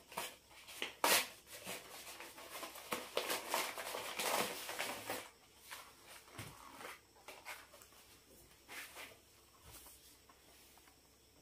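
Paper parcel rustling and crinkling as it is handled and opened, busy and loudest in the first five seconds, then thinning to a few fainter rustles.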